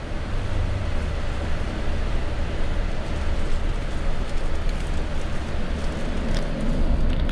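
Steady low rumble inside the passenger cabin of a Comil Invictus DD double-decker coach on a Scania K440IB chassis: engine and running noise, with a hiss over it.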